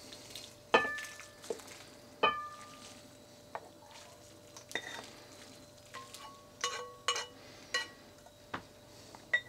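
Kitchen tongs clinking against a saucepan and a ceramic bowl while noodle soup is served. About a dozen short ringing clinks come at uneven intervals, the loudest about a second in and just after two seconds.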